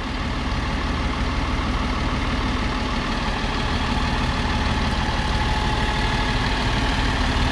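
A 2006 Freightliner M2 service truck's diesel engine idling steadily.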